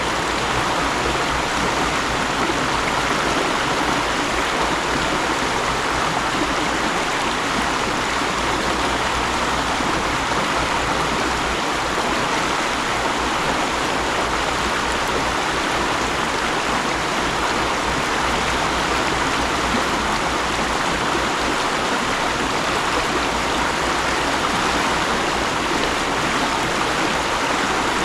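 Mountain stream flowing over rocks: a steady, unbroken rushing of water.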